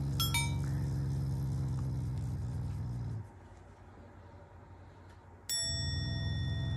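Black Shiba Inu growling low and steady with teeth bared: one growl of about three seconds, a pause, then another starting about five and a half seconds in. This is the dog's habitual show of affection, not anger. A bright chime sound effect rings at the start of each growl.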